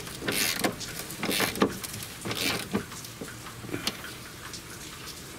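Ratchet wrench tightening the subframe silentblock bolts: a string of short ratcheting strokes in the first three seconds, then a few single clicks and a quieter stretch.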